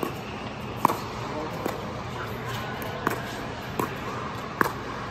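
Pickleball rally: six sharp pops of paddles striking the plastic ball, spaced under a second apart with a longer pause in the middle, over a steady hall hum.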